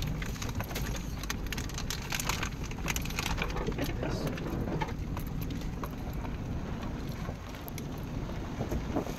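A vehicle crawling along a rough dirt track, heard from inside the cab as a steady low rumble. Many short clicks and scrapes run over it, thickest a couple of seconds in.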